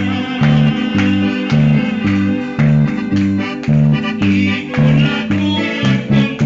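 Instrumental music with guitar over a steady bass beat about twice a second.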